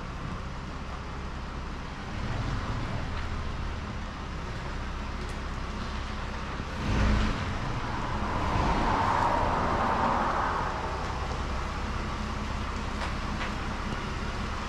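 A vehicle driving on the road: a steady low engine drone under road and tyre rush, swelling louder around the middle.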